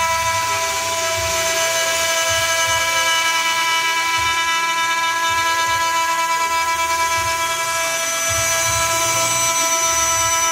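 CNC milling machine's spindle driving an end mill through a metal plate, cutting steadily with a high, multi-toned whine over an uneven low rumble, as in a roughing pass clearing a pocket.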